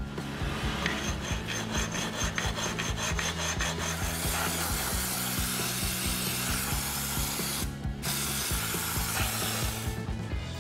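A rough, rasping rub over background music: quick even strokes for the first few seconds, then one continuous rasp that breaks briefly and stops shortly before the end.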